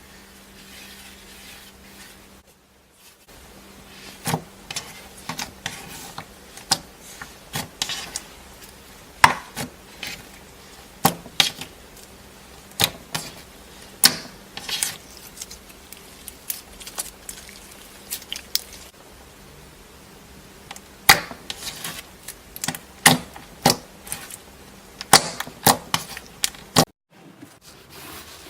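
Slime being squeezed and pressed by hand, giving irregular sharp pops and crackles, sometimes several in quick succession. The sound breaks off into near silence twice, briefly.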